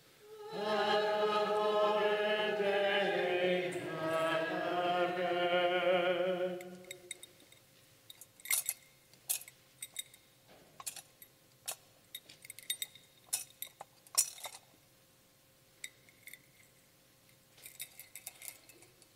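A single voice chants a short liturgical response for about six seconds. Then a metal thurible clinks against its chains, a sharp chink every second or so, as it is swung to incense the Gospel book, with a few lighter clinks near the end as it is set down.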